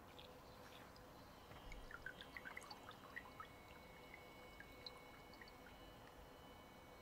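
Faint water drips and small splashes in a paddling pool: a cluster of quick plinks about two to three seconds in, then a few more.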